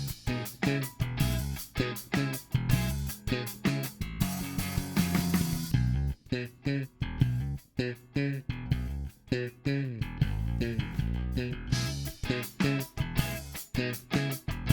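Lakland Skyline 44-64 four-string electric bass with EMG GZR-PJ passive pickups, played alone in a steady run of short plucked notes, recorded direct through a preamp set flat. The top end turns duller for a few seconds in the middle, then comes back.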